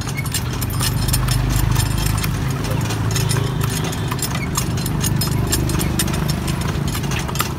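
A cart horse's hooves clip-clopping on a paved road as it pulls the cart, over a steady low rumble.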